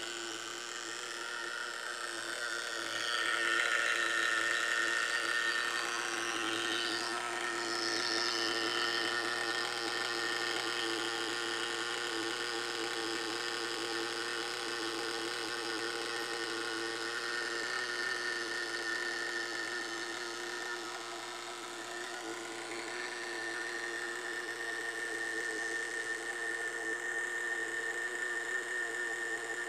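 Small nitro glow engine of a 1/10 RC monster truck idling steadily on the bench during break-in, a little louder for a while from about three seconds in.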